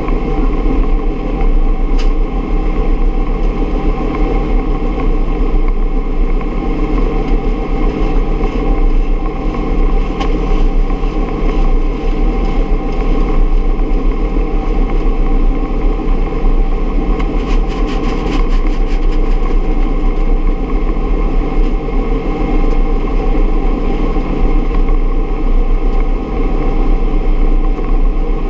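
1968 Bell UH-1 Huey helicopter running steadily, its turbine engine and rotor making a loud, even drone with constant whining tones over a deep rumble.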